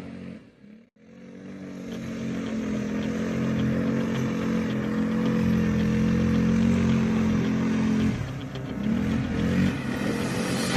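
ATV single-cylinder engine running steadily under throttle, then easing off about eight seconds in and picking up again. It fades in after a short break in the sound about a second in.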